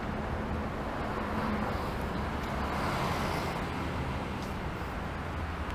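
Steady rumble of road traffic, swelling a little a couple of seconds in as a vehicle passes.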